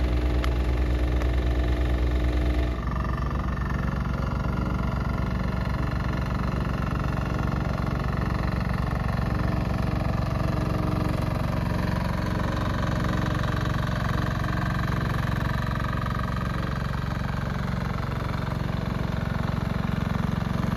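Small engine of a walk-behind double-drum vibratory roller running steadily as it is walked over the ground. Its note changes about three seconds in.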